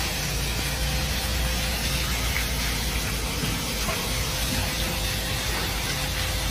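Steady low rumble under an even hiss: street noise that includes a dump truck's engine running, picked up by a phone microphone.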